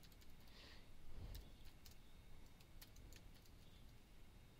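Faint computer keyboard typing: scattered, irregular keystroke clicks as code is entered. A soft low thump about a second in.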